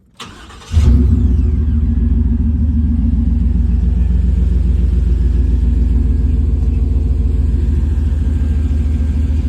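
OBS pickup truck's engine started on its newly replaced starter: a brief crank, the engine catches within about half a second and then runs steadily.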